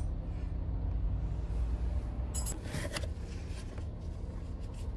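Steady low hum with a few light clicks and rubbing sounds, the clearest about two and a half and three seconds in.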